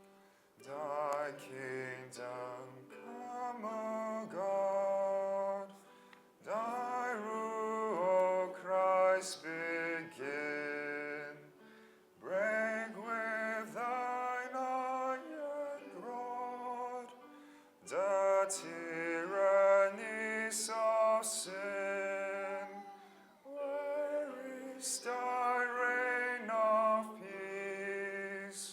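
Slow hymn music: voices singing with vibrato over instrumental accompaniment, in phrases of a few seconds separated by brief pauses.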